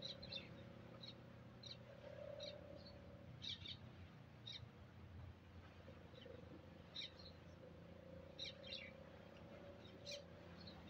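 Faint, short high bird chirps at irregular intervals of about a second, some in quick little clusters, over a faint steady hum.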